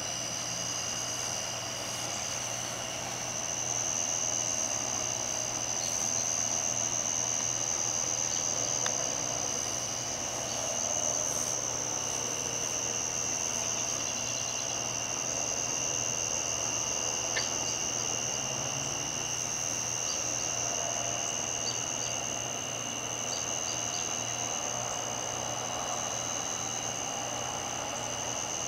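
Insects, such as crickets, trilling continuously at night in one steady high-pitched note, with a weaker lower trill beneath it. A faint distant engine drone runs underneath.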